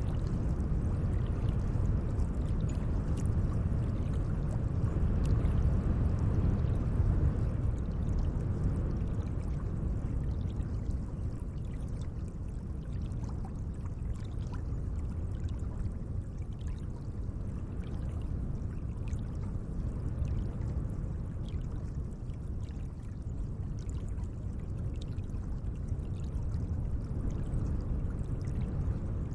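Gentle lake water running steadily, a low, even wash of sound with faint small ticks of water scattered through it.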